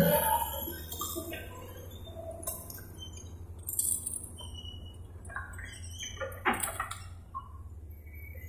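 Heavy diesel mining machinery running with a steady low hum. Scattered light clinks and a few sharp knocks come about two thirds of the way through.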